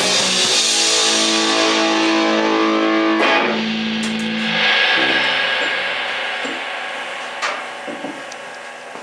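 Rock band ending a song: electric guitar and bass hold a final chord over a cymbal wash, shift to another held chord about three seconds in, then let it ring and fade away. A single sharp click near the end.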